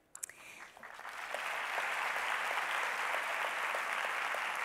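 Audience applauding. The clapping builds up over the first second or so, then holds steady.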